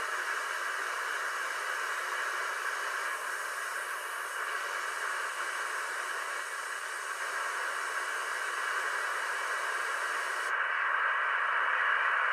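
Steady static hiss from a 2-metre (145 MHz) amateur-band receiver, tuned between transmissions with no voice on the channel. About ten seconds in, the highest part of the hiss drops away and the noise grows a little louder.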